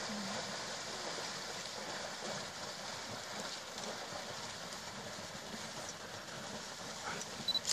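A large herd of Cape buffalo wading and trampling through a shallow, muddy waterhole: a steady mass of splashing and hoof noise. A sharp click comes near the end.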